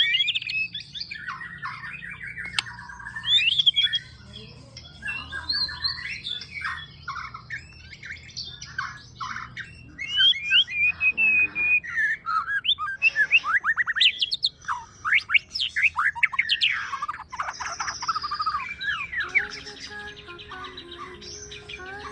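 Young white-rumped shama singing a continuous, varied song of whistles, chirps, rising and falling sweeps and fast trills.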